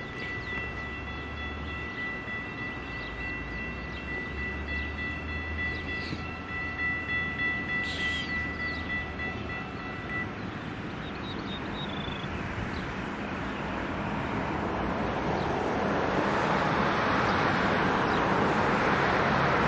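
A train at a grade crossing: a steady high tone with overtones for about the first ten seconds, then a rush of noise that grows steadily louder as the train nears.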